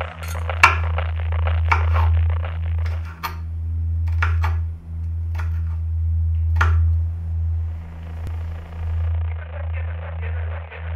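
A low steady drone with a crackly hiss over it, broken by scattered sharp knocks in the first seven seconds; among them a kitchen knife chopping chili peppers on a wooden cutting board.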